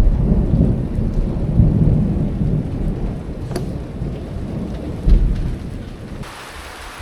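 Thunder rumbling deep and slowly dying away, with rain falling; a brief louder boom about five seconds in. Near the end the rumble gives way suddenly to the steady hiss of rain.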